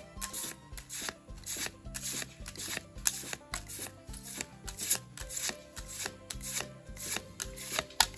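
Pokémon trading cards being slid and flipped by hand, making quick sharp clicks and rubs several times a second, over background music with a low bass line.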